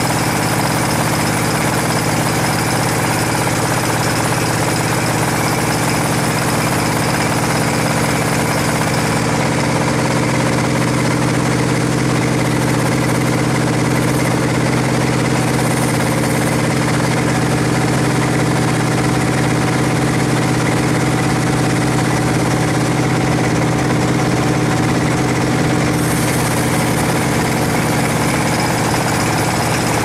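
Sawmill running steadily, its blade cutting lengthwise through a rosewood log as the log is fed past it: a loud, even machine drone with a steady low motor hum.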